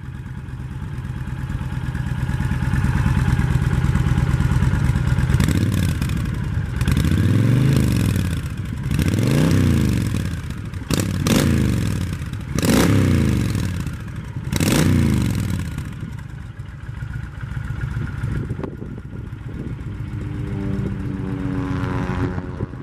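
2013 Honda Fury's 1312 cc V-twin, through its stock exhaust, idling, then revved several times in quick blips about five seconds in, each rising and falling back, before settling to idle again.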